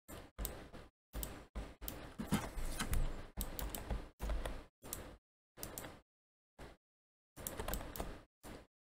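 Computer keyboard and mouse clicking in short, irregular bursts, busiest through the middle and sparser near the end.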